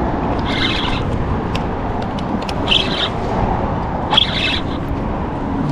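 Birds calling three times in short high calls, about a second and a half apart, over a steady rush of background noise.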